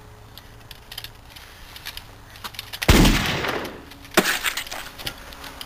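Two gunshot sounds about a second and a half apart. The first, nearly three seconds in, is a loud blast with a long fading tail; the second is a sharper crack. A few light clicks come before them.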